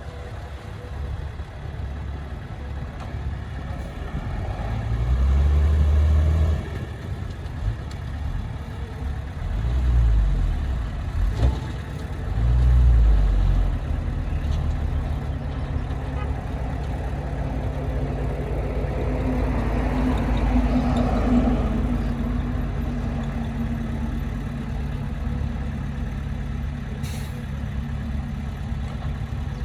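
Diesel engine of heavy earthmoving machinery running steadily, with several loud, low surges under load in the first half and a longer rise in engine note later on. A couple of sharp clicks or knocks are heard.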